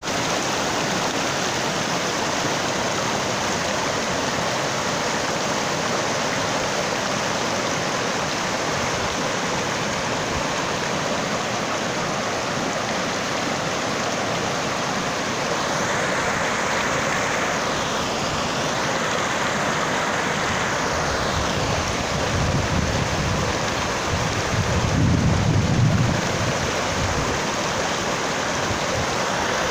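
Shallow mountain stream rushing over rocks and riffles, a steady hiss of running water. A low rumble swells for a few seconds about three-quarters of the way through.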